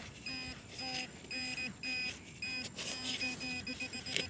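Handheld metal-detecting pinpointer beeping in repeated pulses, about twice a second and closer together later on, as it is probed in the dug hole: it is sounding on a buried metal target.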